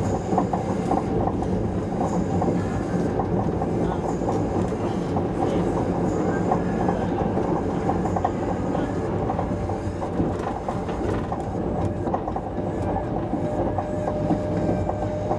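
Interior running noise of an SJ 3000 (X55) electric multiple unit at speed: a steady rumble of wheels on rail with frequent short clicks. A thin steady tone comes in near the end.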